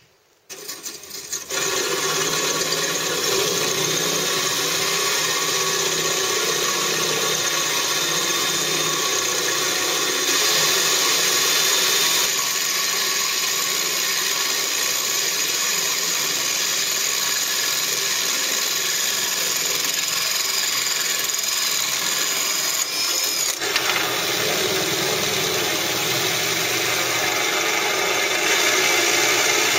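Hand-held drill turning a 35 mm diamond core bit, grinding a hole through a washbasin's deck. After a few short bursts at the start, it settles into a steady grinding that runs on without a break.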